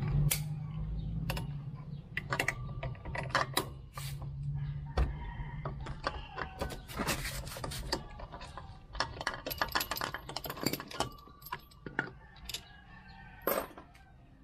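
Metal clicks and clinks of a wrench and hand-held parts as the nut and front drive face come off a Honda PCX 150's variator pulley, with a low hum in the first few seconds that fades out.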